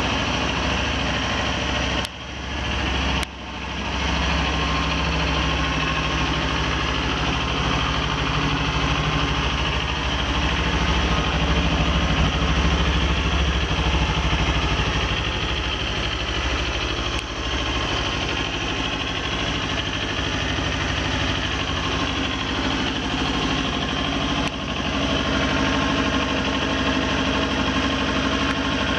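2018 Kawasaki Ninja 400's liquid-cooled parallel-twin engine idling steadily, with a fuller, deeper sound while the microphone is near the exhaust muffler. The sound briefly drops out twice, about two and three seconds in.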